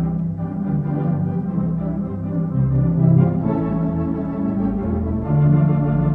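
Organ music accompanying a silent film: held low chords under a moving melody, swelling louder about five seconds in.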